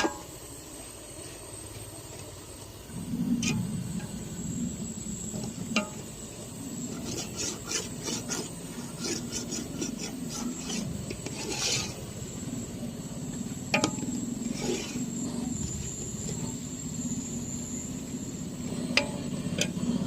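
A spoon scraping and stirring in a cooking pot of chicken, in short irregular scrapes and clicks that come thickest in the middle, over a steady low hum that starts a few seconds in.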